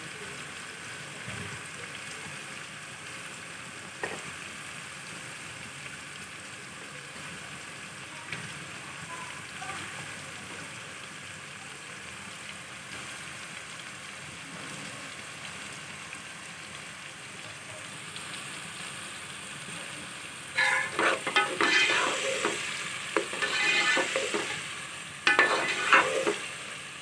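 Sliced onions and green chillies sizzling steadily in hot oil in a metal pot as they are lightly browned. About twenty seconds in, a metal ladle starts stirring them, scraping against the pot in louder, irregular strokes.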